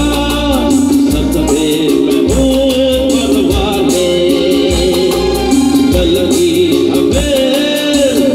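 Live Hindi film song played through a PA: a male vocalist sings into a microphone over a band of electric guitars, keyboards and drums.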